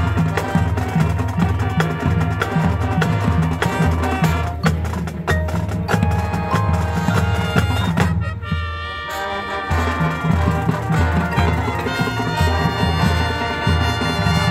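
Marching band playing its field show: wind instruments over a pulsing drum beat. The sound thins out for a moment about eight seconds in, then the full band comes back in.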